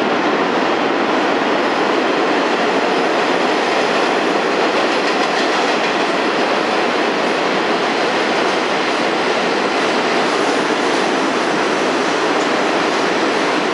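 An R46 subway train running through the station at speed on the express track without stopping. It makes a loud, steady rail noise.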